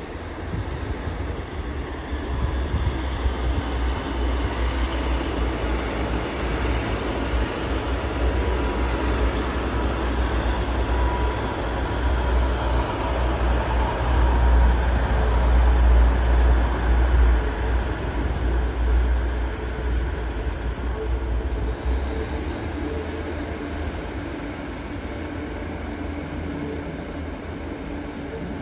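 Train moving past along the platform: a heavy low rumble that builds to a peak about halfway through and then eases off, with a faint falling whine in the first few seconds.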